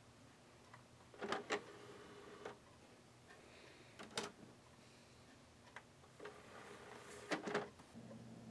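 Sony Blu-ray player's motorised disc tray sliding open with a couple of clicks and a short whirr, a disc set down on the tray with a click, then the tray whirring shut and latching with clicks. A low steady hum sets in near the end.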